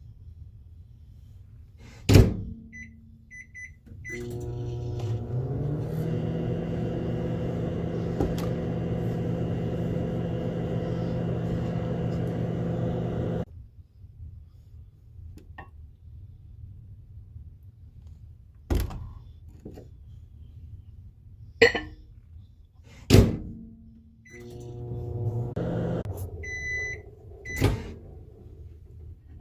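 Microwave oven in use. A door shuts with a loud knock and the keypad beeps, then the oven runs with a steady hum for about ten seconds and stops abruptly. Several sharp knocks follow, then a second, shorter run and more beeps near the end.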